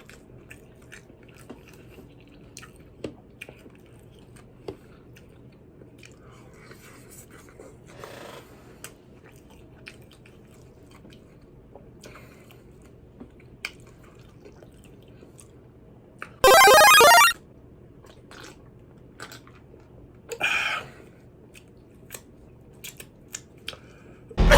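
Close-miked chewing and crunching of fried chicken tenders, with scattered small mouth clicks. About two-thirds of the way through, a brief loud electronic ringing tone cuts in for under a second.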